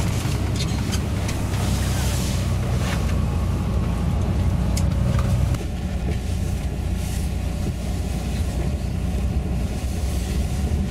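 Tour bus's engine and road noise heard inside the cabin: a steady low rumble. About halfway through it drops slightly, and a faint steady whine comes in above it.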